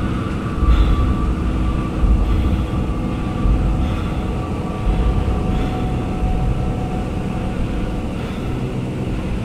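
Airliner cabin noise while rolling along a runway: a steady jet-engine whine over the rumble of the wheels, with uneven low bumps every second or so.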